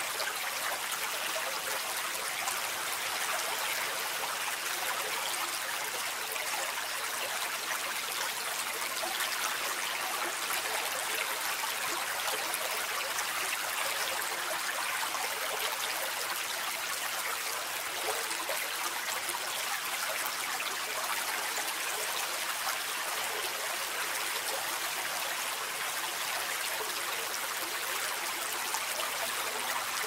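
A small brook splashing steadily over a low rock ledge into a shallow pool: an even, bright rush of water with fine trickling, constant throughout.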